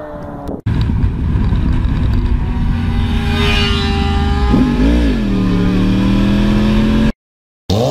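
Motorcycle engine falling in pitch as it goes by, cut off suddenly, then the onboard sound of a motorcycle riding fast on a highway: steady engine note under heavy wind rush, with a quick rev that dips and rises about halfway through. The sound drops out for a moment near the end.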